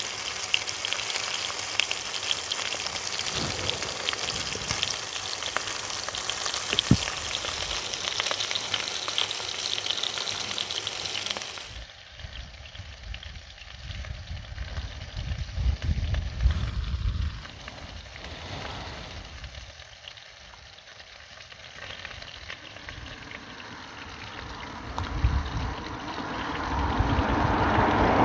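Barnsley lamb chops sizzling steadily in a frying pan on an induction hob. About twelve seconds in this cuts to a quieter low rumble, with the hiss of a vehicle on a wet road growing louder near the end.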